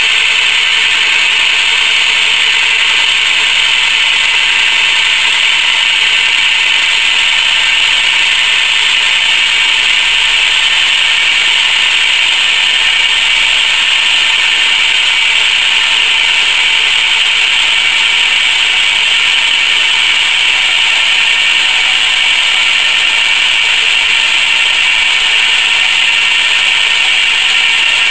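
Motor-driven car jack running steadily under load, its gear drive making a continuous, even, high-pitched whirr as it slowly raises a standing person.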